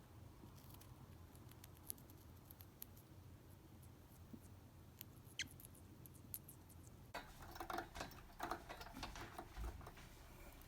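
Faint scattered clicks and light scratching from a Pacific parrotlet moving about, with a busier stretch of rustling and scratching from about seven seconds in.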